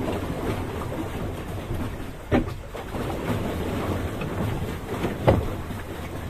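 Small paddled boat moving through water: a steady rush of water and wind noise, with two sharp knocks about three seconds apart.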